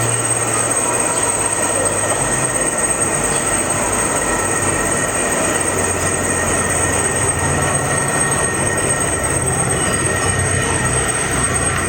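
Steady loud machine noise with a constant high-pitched metallic whine over a low hum, running without a break.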